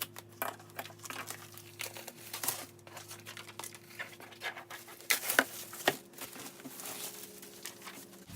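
Crinkling and rustling of fabric storage bags with plastic inserts being handled, with a few sharper knocks about five to six seconds in, over a faint steady hum.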